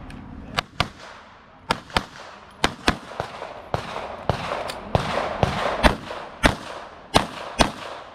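Rapid pistol fire from a compact back-up-gun handgun: a string of about fourteen shots, the first ones in quick pairs, each followed by a short echo.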